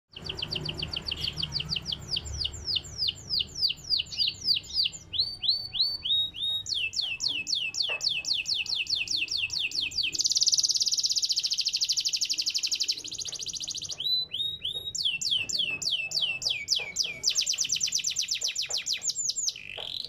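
Canary of the AF line singing: long runs of quick, repeated down-slurred whistled notes, broken about halfway through by a fast, dense trill of about three seconds, then more runs of slurred notes.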